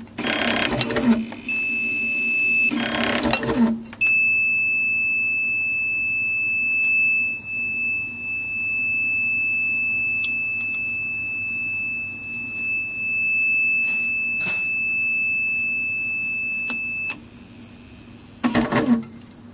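Automatic tube-cutting machine's feed and blade running in short spells, then its alarm buzzer sounding one steady high-pitched tone for about thirteen seconds: the signal that the no-tube sensor switch has stopped the unit. The tone cuts off suddenly, and the machine runs again briefly near the end.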